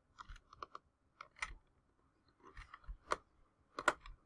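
Computer keyboard keys being pressed: faint, irregular clicks, a few a second with pauses between, used to steer an animated puppet's eyes.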